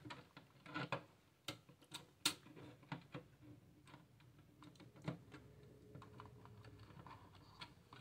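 Faint, irregular small clicks and knocks as a GT 1030 graphics card is pushed and wiggled into a tight spot inside a computer case among its cables.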